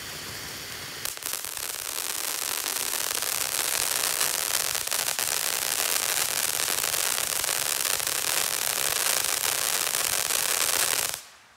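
Ground fountain firework spraying sparks: a steady hiss that jumps louder about a second in and cuts off sharply near the end.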